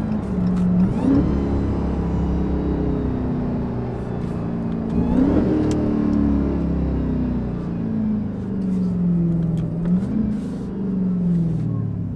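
The supercharged HEMI V8 of a 1,000 hp Dodge Demon Charger driving at low speed. Its pitch climbs briefly three times, about a second in, around five seconds and around ten seconds, and sinks back slowly between the climbs.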